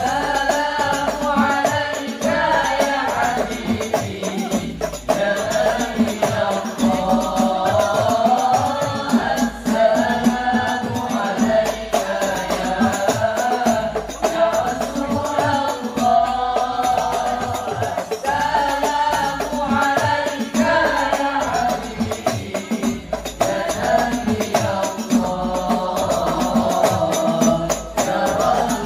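Al Banjari group performing sholawat: young male voices singing a devotional chant into microphones over a steady rhythm of hand-struck frame drums (terbang/rebana).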